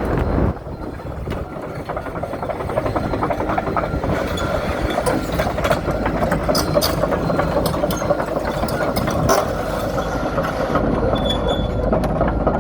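Komatsu PC138US-11 excavator running: its diesel engine holds a steady rumble under repeated metal clanks and rattles, which are busiest through the middle.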